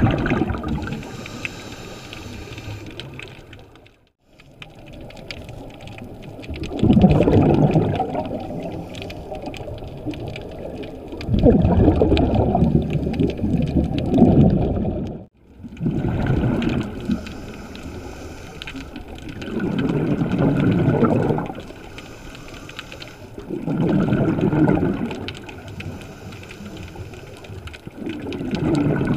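Scuba regulator breathing heard through an underwater camera housing: a rush of exhaust bubbles about every four seconds, with quieter hiss between breaths. The sound cuts out briefly twice.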